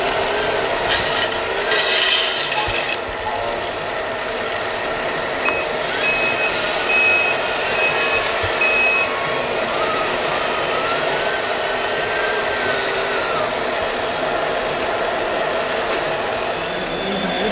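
Radio-controlled model trommel screen running: the rotating drum and its conveyor make a steady mechanical whirr as wood chips tumble through. Small electric drive motors whine, rising and falling in pitch.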